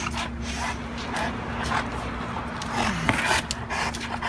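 A St. Bernard panting heavily with its mouth open, about two breaths a second, with some scraping and rubbing.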